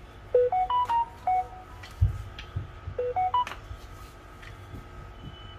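Phone ringing: a ringtone of short clean notes stepping upward, which starts again about three seconds in. A dull knock comes about two seconds in.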